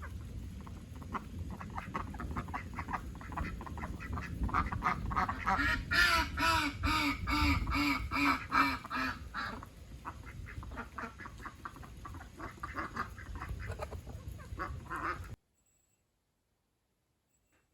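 Ducks quacking in a rapid, busy run of calls, loudest a few seconds in. The sound cuts off abruptly near the end.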